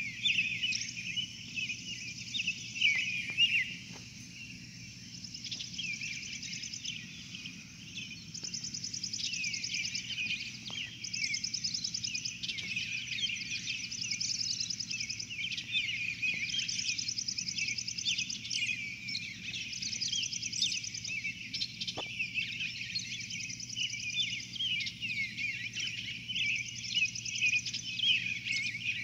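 A dense outdoor chorus of many birds chirping and trilling over one another, with a steady low hum underneath.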